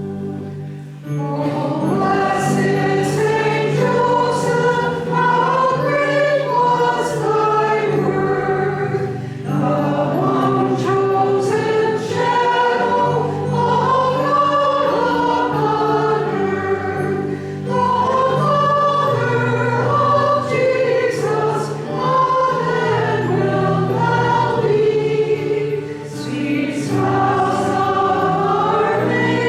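Choir singing a closing hymn over a steady low accompaniment, the voices coming in about a second in.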